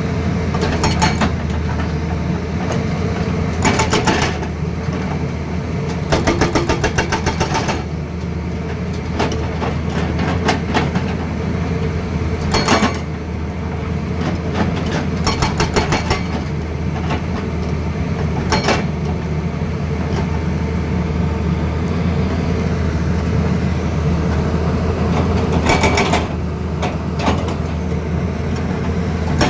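Excavator diesel engine running steadily, with a hydraulic breaker hammering in short bursts of rapid, evenly spaced blows, several times over.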